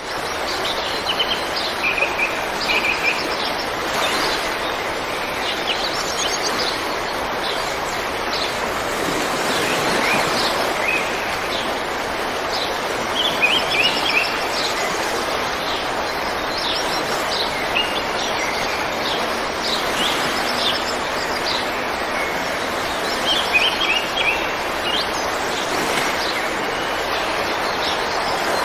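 A river flowing, a steady rush of water, with birds chirping over it now and then.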